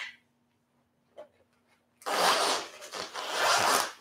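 Two long scraping rubs starting about two seconds in, the second a little longer, like something being dragged or rubbed against a surface.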